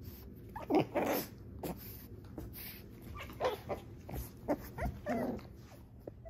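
American Bully puppies play-fighting, giving short growls and yips in a run of brief separate bursts.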